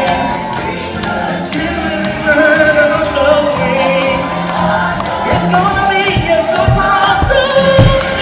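Stage-show music with singing and a choir-like backing; low drum beats come in about six seconds in.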